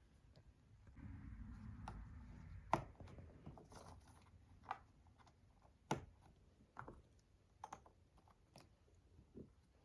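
Jigsaw puzzle pieces being fitted into place: scattered faint clicks and taps, the sharpest about three and six seconds in, with a soft rustle of handling between one and three seconds.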